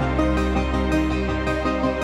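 Background music: a calm, new-age style track with sustained notes.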